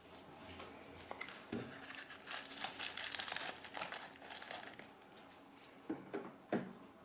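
Crinkling and rustling of something being handled, busiest in the middle, followed by two sharp knocks near the end.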